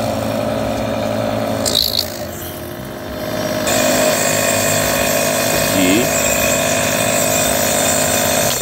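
NS Inalar Compact piston air-compressor nebulizer running with a steady mechanical hum. After a brief click about two seconds in, a louder rush of air joins from about four seconds, as the jet nozzle in the cup turns the water into mist.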